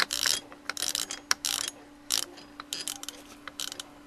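Handwheel of a homemade manual pulse generator being turned, its detent (a limit-switch arm riding on the notched index wheel) clicking in quick, irregular runs of clicks.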